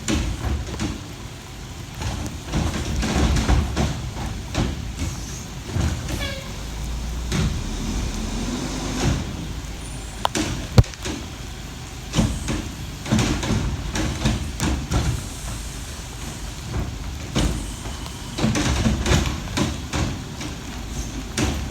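Old Heil garbage truck working in pouring rain: the engine runs under a steady hiss of rain, with repeated clanks and bangs throughout.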